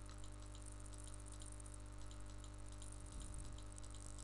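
Faint, evenly repeated mouse clicks, about three or four small ticks a second, as the file list is scrolled, over a steady low electrical hum.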